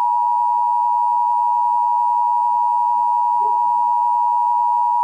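Emergency Alert System attention signal on a radio broadcast: a loud, steady electronic tone near 1 kHz, held without a break, announcing a tornado warning.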